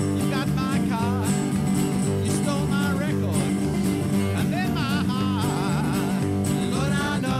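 Live blues band music: a lead instrument plays lines that bend up and down in pitch over steady bass and drums, with no singing.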